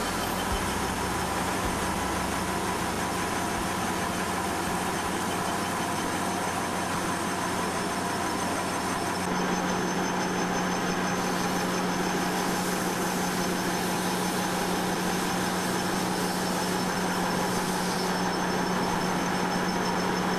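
TP160 PE tarpaulin single-side laminating machine running: a steady mechanical drone with a constant low hum, which grows a little stronger about halfway through.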